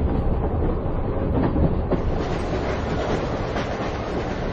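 Inside a moving train carriage: a steady rumble of the running car with the clatter of wheels on rail joints. About two seconds in, the sound turns brighter as a second carriage-interior recording comes in.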